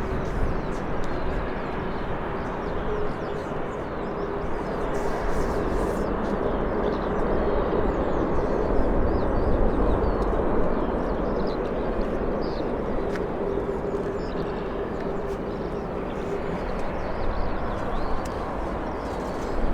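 Jet airliner engines running, a steady broad rumble with a faint steady hum, while small birds chirp faintly.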